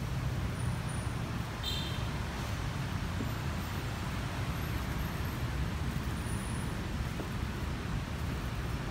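Steady city traffic noise, a low rumble of engines and tyres from the road below the walkway. A brief high-pitched chirp sounds about two seconds in.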